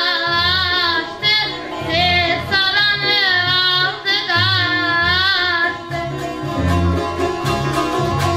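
A high voice singing a slow, ornamented melody with long wavering held notes over a plucked saz, an Azerbaijani long-necked lute. About six seconds in the voice stops and the saz carries on alone with quick plucked strokes.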